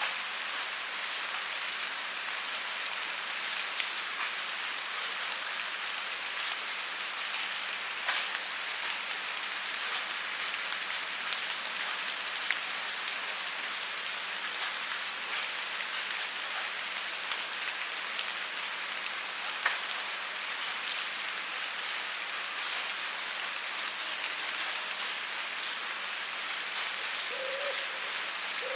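Steady rain falling on a surface: a dense, even hiss broken by a few sharper single drop hits, the loudest about eight seconds in and near the twenty-second mark.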